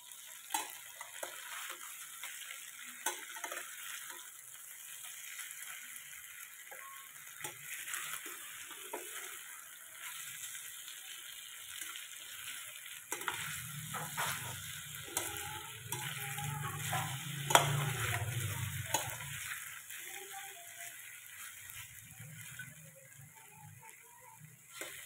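Marinated chicken pieces sizzling in oil in a stainless steel pan as a metal spatula stirs them, with scattered clicks and scrapes of the spatula on the pan. A low hum joins in for about six seconds in the middle.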